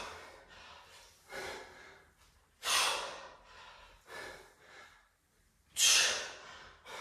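A man breathing hard under exertion: two forceful exhales about three seconds apart, with quieter breaths between them, in time with the reps of a kettlebell squat press.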